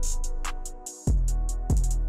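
Background music with a beat: a deep, booming kick drum about every two-thirds of a second and quick hi-hats. The bass drops out briefly just before a second in, then the beat comes back.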